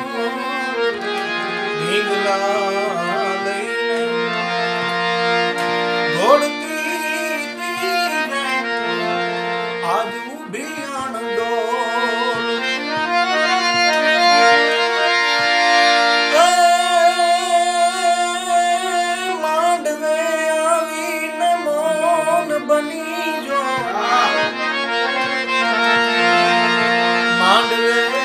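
Harmonium playing an instrumental interlude of a Gujarati folk farewell song (biday geet): a melody with ornamented runs over steady held drone notes.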